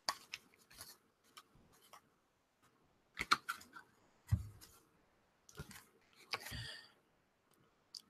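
Oracle cards being handled: scattered soft clicks and card slides, a low tap about four seconds in, and a brief rustle past six seconds as a card is drawn and lifted.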